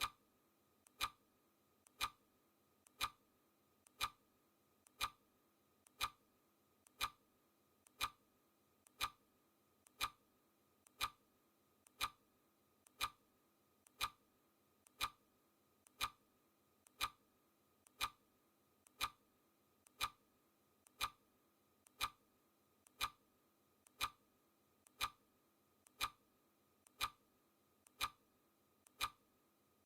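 Clock-ticking sound effect: steady, crisp mechanical clock ticks at about one a second.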